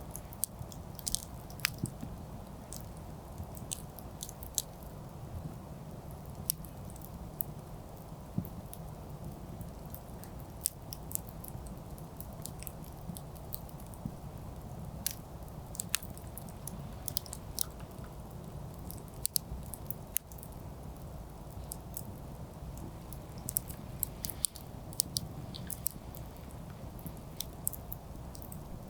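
Wood campfire burning, with irregular sharp crackles and pops over a steady low background noise.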